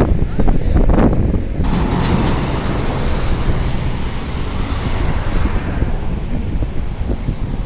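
Road traffic passing, with wind buffeting the microphone in a steady low rumble. A passing vehicle's tyre and engine noise swells about two seconds in and fades out near the end.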